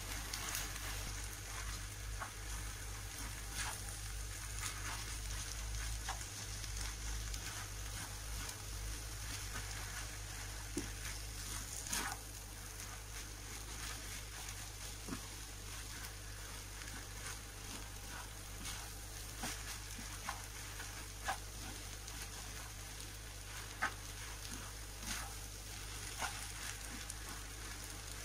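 Noodles, vegetables and shrimp sizzling in a hot wok as they are stir-fried. Frequent short clicks and scrapes of the spatula against the pan run through it.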